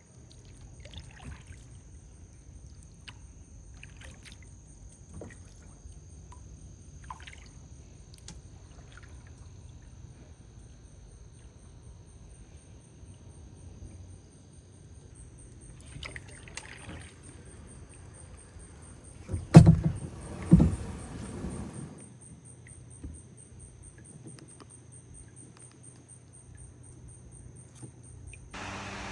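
Kayak paddling slowly in calm swamp water: soft paddle splashes and drips, and small knocks of the paddle on the hull. About twenty seconds in there are two loud knocks followed by a short scrape. A steady high insect trill runs underneath.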